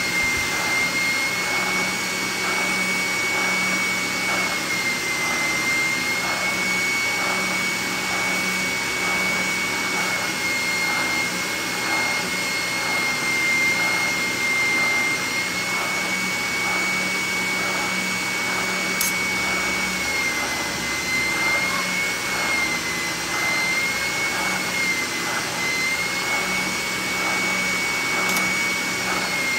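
Benchtop spindle sander running with a shop vacuum drawing on its dust port, a steady high whine, while the edge of a steel knife blank is ground against the sanding sleeve. A faint regular pulse runs under the whine.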